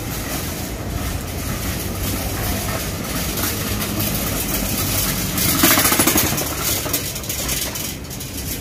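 Busy street traffic noise heard while walking: a steady engine hum under general city din, with one brief louder burst about five and a half seconds in.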